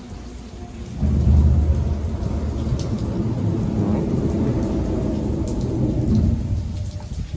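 Thunder rumbling for about six seconds, starting about a second in, over steady rain.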